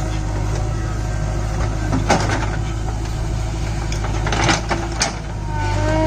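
JCB 3DX Super backhoe loader's diesel engine running steadily while its backhoe bucket digs into soil around a tree stump, with a few sharp knocks and scrapes about two seconds in and again near the end.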